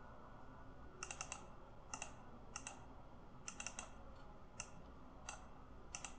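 Faint computer clicking: single clicks and quick runs of three or four, spaced roughly a second apart.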